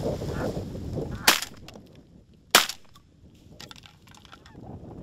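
Wind buffeting the microphone while Canada geese honk, then two shotgun shots about a second and a quarter apart, each a sharp crack with a short echo.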